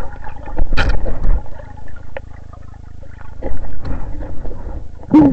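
Water noise picked up by a camera in and at the water's surface: muffled sloshing and bubbling over a steady low rumble, with louder bursts of splashing about a second in and again near the end.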